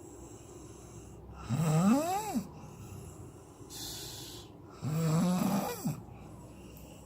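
A sleeper snoring: two loud snores about three seconds apart, each rising and then falling in pitch, with a breathy exhale between them.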